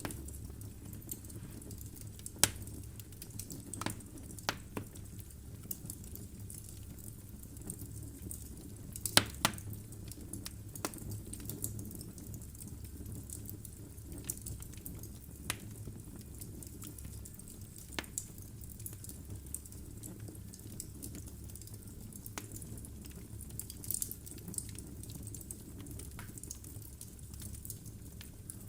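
Logs burning in a fireplace: irregular crackles and pops over a low steady rumble, with the sharpest pops about two and a half and nine seconds in.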